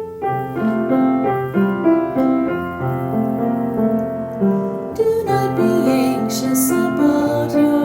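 Piano playing a gentle melody over chords, with notes changing about every half second.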